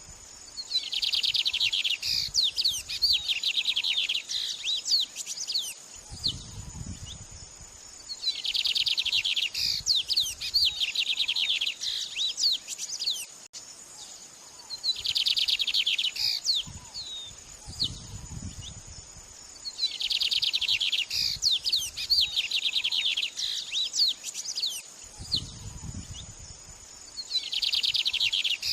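Songbird song from a birdsong training track: about every six to seven seconds comes a fast run of rapid, high chirping notes lasting about two seconds, then scattered single chirps, over a steady high whine.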